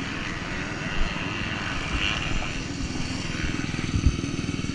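Motocross bike engine running with a steady, fast firing pulse, with a few short thumps.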